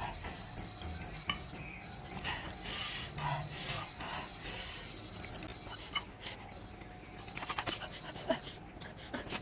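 A woman panting and blowing out hard breaths through her mouth, a reaction to the burn of extremely spicy noodles, in a series of short puffs; a run of small clicks follows near the end.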